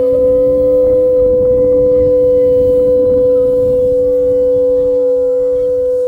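Shofars blown together in one long, steady, unbroken blast, two different pitches held at once.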